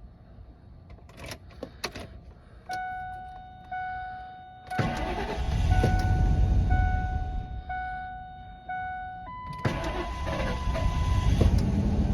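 1998 Ford Expedition's V8 being cranked on freshly added gasoline and catching, then running, after sitting about a year. The dash warning chime pings about once a second behind it.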